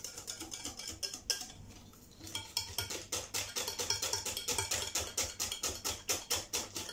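Wire whisk beating crêpe batter in a bowl, its wires clicking quickly and evenly against the bowl's side. The clicks pause briefly about two seconds in, then resume in a fast, steady rhythm.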